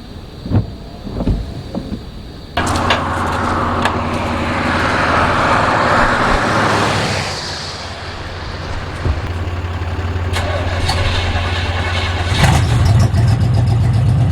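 A few knocks, then a vehicle engine starts suddenly and runs steadily under a loud hiss that fades after a few seconds. Near the end the engine gets louder and rougher.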